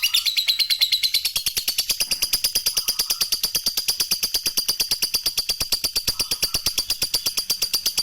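Lovebird 'ngekek' song: a long, unbroken, rapid chattering trill of high, sharp notes, a dozen or more a second, held at an even pace throughout.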